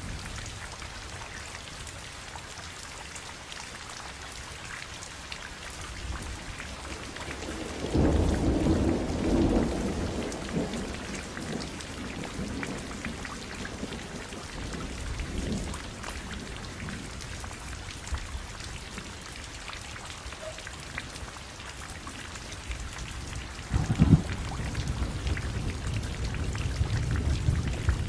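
Steady rain falling, with many separate drops ticking. Low rolls of thunder rumble about eight seconds in and again near the end.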